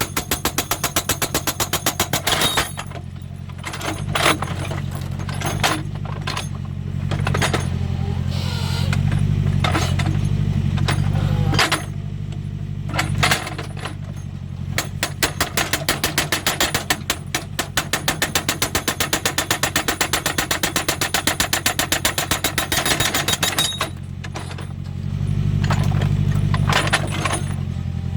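Hydraulic rock breaker on a JCB 3D backhoe loader hammering rock in a rapid, even stream of blows, over the steady run of the backhoe's diesel engine. The hammering stops briefly a few times while the engine keeps running and rises in pitch at times.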